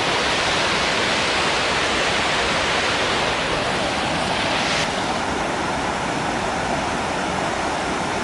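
A waterfall's water pouring down in a loud, steady rush. About five seconds in, the higher hiss drops away a little.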